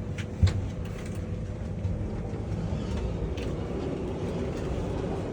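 Hotel elevator running with a steady low rumble, with a single sharp thump about half a second in.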